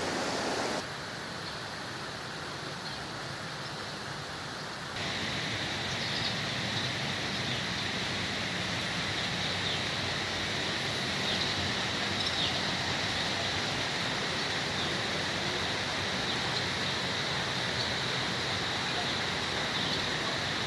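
Steady rush of running water, with sudden level shifts about a second in and about five seconds in; from about five seconds in, a faint steady high whine sits above the water.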